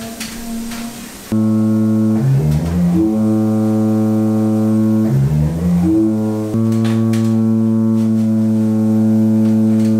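Church organ pipes sounding held notes while being tuned by ear: a quieter note, then from about a second in a loud, steady low note, broken twice by a quick stepwise rising run of lower notes before the low note sounds again.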